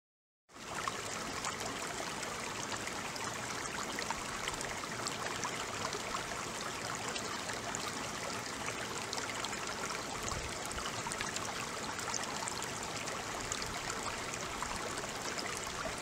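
Steady rush of a stream and waterfall pouring over granite rocks, starting about half a second in.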